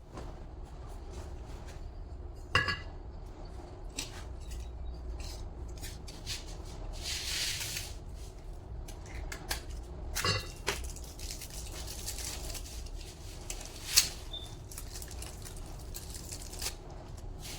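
Metal parts and hand tools clinking and knocking together on a workbench: scattered sharp metallic knocks, a few with a short ring, the loudest about fourteen seconds in. A steady low hum runs underneath, and there is a brief hiss about seven seconds in.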